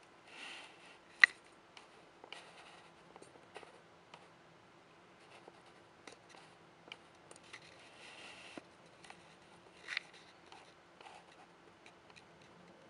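Quiet room tone with a faint steady low hum, broken by scattered small clicks and brief scraping rustles. A sharp click comes about a second in and another later on.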